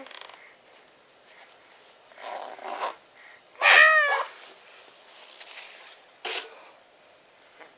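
A toddler's short, high-pitched squeal of laughter about halfway through, between brief scratchy zipper pulls before it and near the end.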